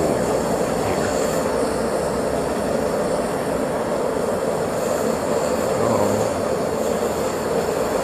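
Small metal-melting furnace running with a steady, even rushing noise while it melts metal in its crucible.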